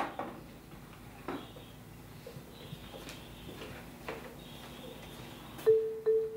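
A glass bottle clinks against a glass on a small wooden table, then light knocks and scuffs follow in a quiet tiled room. Near the end comes a sharp knock with a short ringing tone after it.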